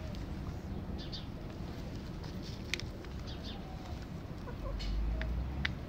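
Young backyard chickens clucking softly as they peck at food, with a few sharp taps. A low rumble rises about five seconds in.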